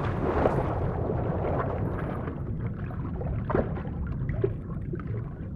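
Muffled underwater rushing heard from beneath the surface of a lake, with scattered small bubbling crackles.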